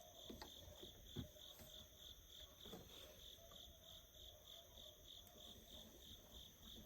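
Crickets chirping steadily in the dark, a high pulsing chirp about three times a second over a faint insect hum, with a few faint knocks.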